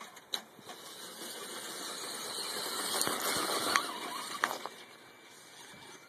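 Electric motor and gears of a radio-controlled scale crawler truck running as it climbs over a tree root, with a few sharp clicks. The sound swells to its loudest about three seconds in, then eases off.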